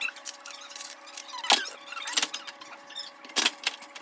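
Clatter of kitchen items being handled and set down: a run of clicks and knocks, with the loudest knocks about a second and a half in and again near the end.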